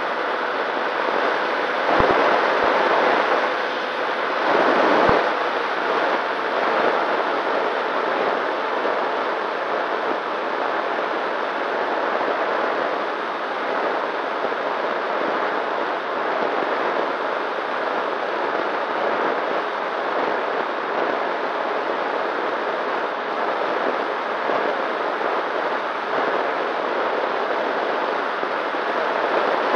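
Wind rushing over the onboard camera of a Nano Talon FPV plane in flight, with its electric motor and propeller running under it: a steady hiss, with louder gusts about two and five seconds in.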